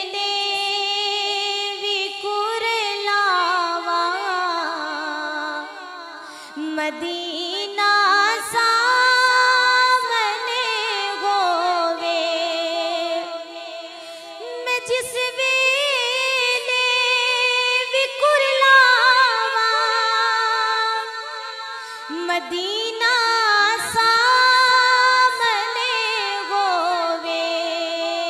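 A woman singing a naat solo in long melodic phrases, holding notes and ornamenting them with sliding turns, with short breaks between phrases.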